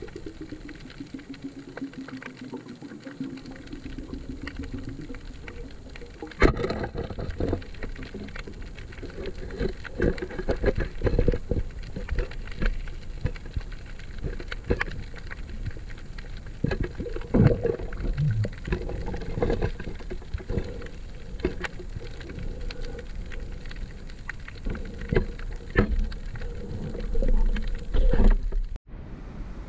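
Underwater sound picked up through a camera's waterproof housing: a muffled wash of water noise with a low wavering hum in the first few seconds, then many irregular knocks and clicks from about six seconds in. The sound cuts out briefly near the end.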